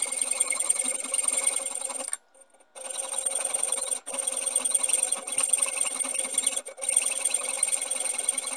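Hand hacksaw cutting through a small metal workpiece, a continuous rasping grind of the blade teeth on metal that stops for about half a second around two seconds in and dips briefly twice later.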